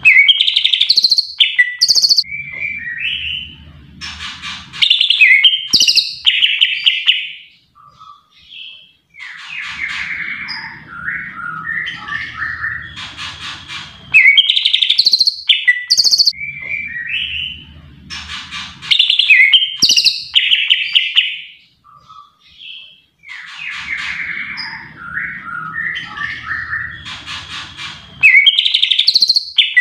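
Cucak ijo (green leafbird) singing loud, varied bursts of chirps, trills and whistles, phrases that seem to repeat in the same order about every 14 seconds.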